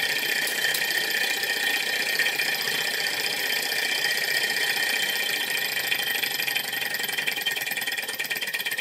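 Small model Stirling engine running fast: a steady whirr with a rapid, even clatter from its piston and flywheel, the beat growing more uneven near the end.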